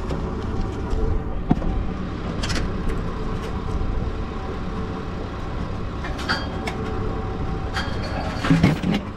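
An engine idling steadily, with sharp metal clicks and clanks as the lid of a steel pail is worked open, the loudest clank near the end.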